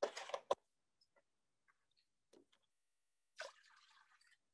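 Faint handling of a plastic vinegar jug with a sharp click in the first half-second, then a few faint ticks. About three and a half seconds in, a short splash of white vinegar poured from a glass measuring cup into a small stainless steel saucepan.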